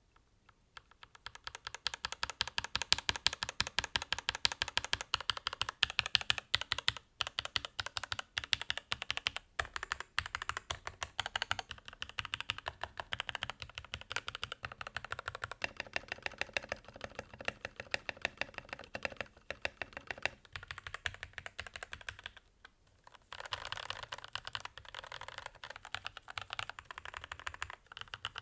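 Typing on a Keychron K8 aluminium-bodied TKL mechanical keyboard with factory-lubed Gateron Red linear switches, resting on a desk mat: a fast, steady run of keystrokes with a few short gaps and a brief pause near the end.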